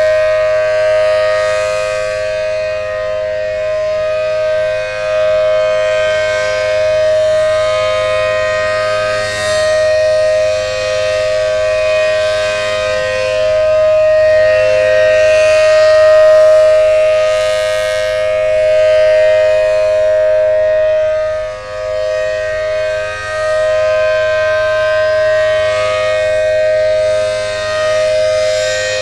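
ACA Allertor 125 rotating outdoor warning siren, a first-generation 10/12 port unit, sounding the steady Alert signal: a loud, unwavering two-note chord that swells and fades every few seconds as the rotating horn sweeps around.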